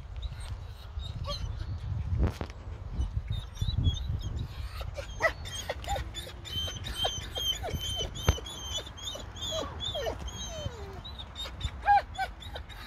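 German Shepherd puppies whimpering and whining, in a quick string of short high whines and yips from about five seconds in.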